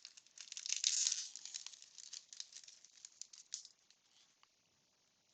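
Waxed-paper wrapper of a 1992 Bowman baseball card wax pack crackling and tearing as it is opened, loudest about a second in and dying away after about four seconds.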